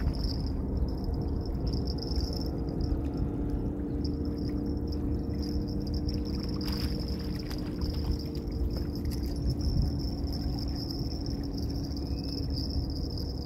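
Steady low hum of a distant engine under wind rumbling on the microphone, with a thin high-pitched whine running steadily over it.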